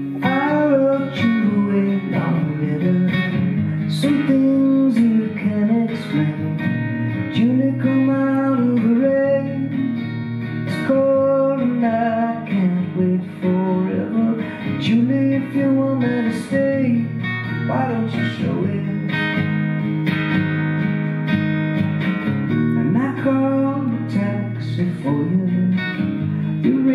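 Live solo acoustic guitar strummed in a steady rhythm, with a man singing a slow melody over it.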